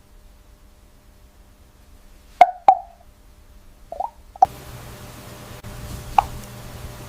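Several sharp, hollow plops, like drops falling into liquid: two close together a little over two seconds in, two softer ones around four seconds, another near the end. A steady low machine hum with hiss starts about four and a half seconds in.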